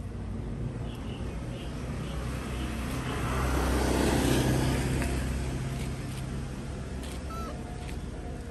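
A motor vehicle passing by: its engine and tyre noise swell to a peak about four seconds in, then fade away.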